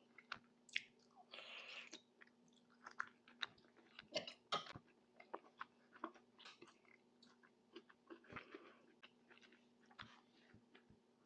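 Close-miked mouth sounds of eating Moroccan tajine: irregular chewing with wet smacks and sharp clicks.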